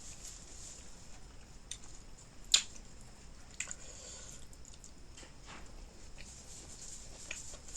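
Close-miked eating sounds: wet smacks and clicks of a mouth chewing food, scattered and irregular, with one louder click about two and a half seconds in.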